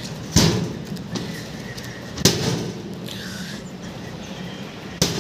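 Hinged glass door of an Agaro 48-litre OTG oven being worked open and shut, giving three sharp knocks spread across a few seconds. The owner finds that the door stops partway on its hinges instead of snapping shut.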